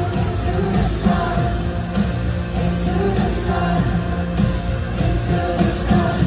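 Pop music with singing and a steady beat.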